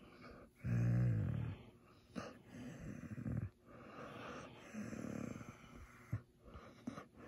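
German Shepherd puppy groaning with pleasure while her head is stroked: three low, drawn-out groans falling in pitch, the first the loudest, with breathy sighs between.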